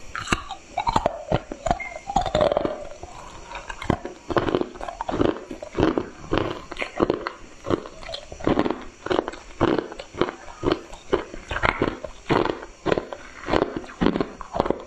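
Close-miked crunching of ice being bitten and chewed: a bite into a piece of ice, then regular crackling crunches about two a second as it is chewed.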